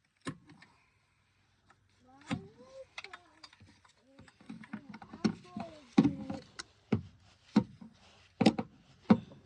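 Oil filter wrench clicking and knocking in repeated sharp strokes while a spin-on oil filter is tightened, coming faster from about four seconds in.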